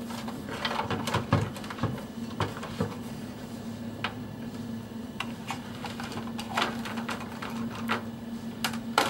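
Hands handling a DVR unit and its cables on a wooden desk: scattered light clicks and knocks, over a steady low hum.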